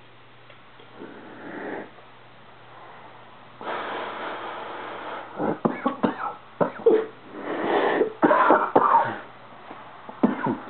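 A person taking a hit from a bong through a gas mask: a steady hiss of drawing for about a second and a half, then a run of coughs and wheezing breaths through the mask.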